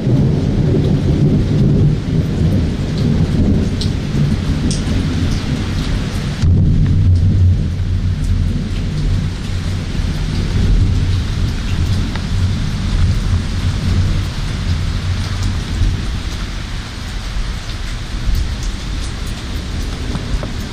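Thunder rumbling low and long through steady heavy rain in a thunderstorm, with individual raindrops ticking. A fresh, louder peal swells in about six and a half seconds in, then the rumble dies away toward the end while the rain keeps falling.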